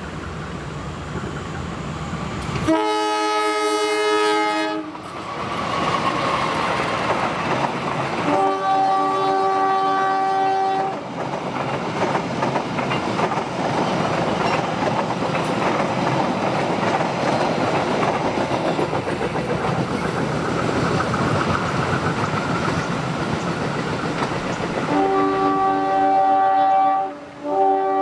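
Diesel locomotive horns sounding in separate blasts: one of about two seconds a few seconds in, another of about two and a half seconds near the 8-second mark, then a long blast near the end broken by a brief gap. Between them the passing passenger train's wheels rumble and clatter on the rails. The horn is a warning to people crossing the tracks and to the train passing on the other line.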